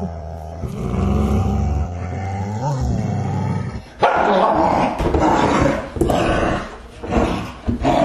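Two dogs growling low and long. About halfway through, the growls break into loud, harsher snarling that comes in short bursts.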